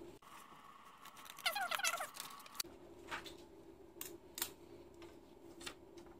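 Scissors cutting a clear plastic transparency sheet: a short squeak about a second and a half in, then a few separate crisp snips over the next few seconds.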